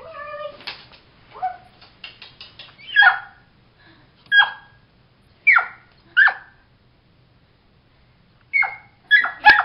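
A puppy's high-pitched yapping barks, about nine short sharp yips in irregular bursts with a pause of about two seconds after the middle: the puppy is stuck under a bed.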